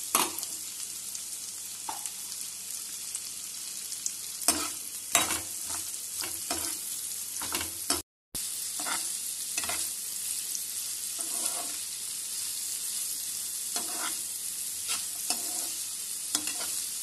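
Chopped onion, green capsicum, garlic and ginger sizzling in hot oil in a pan while a perforated steel ladle stirs them, knocking and scraping against the pan now and then. The sound cuts out for a moment about eight seconds in.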